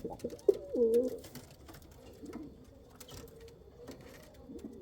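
Domestic pigeons cooing: a loud coo about a second in, then softer coos around the middle and near the end, with faint clicks in between.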